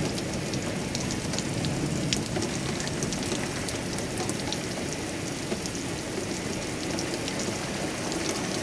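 Heavy rain pouring down onto a lawn and paved patio: a steady hiss with many close drop strikes.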